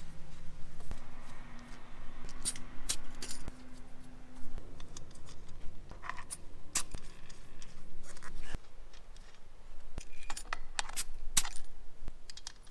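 Scattered sharp metallic clicks and clinks, a few at a time, over a faint low hum.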